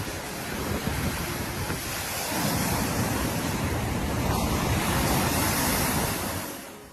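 Storm waves surging on Lake Erie in a gale, with wind buffeting the microphone. It is a steady rush that swells a couple of seconds in and fades out near the end.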